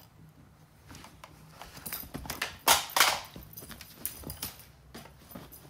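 A cat pouncing and scrabbling on bedding while playing with a string toy: scattered taps and light thumps, with two loud rustling swishes close together about three seconds in.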